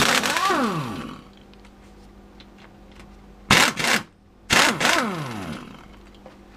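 Pneumatic impact wrench undoing the bolts of a Ford AOD transmission's tail housing. It fires once at the start, then three short bursts about halfway through, and after each run the air motor spins down with a falling whine.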